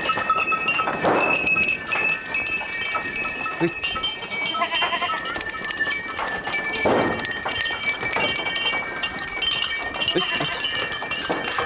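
Goats' neck bells tinkling and clinking throughout as the herd moves, with goats bleating, loudest about a second in and again around seven seconds.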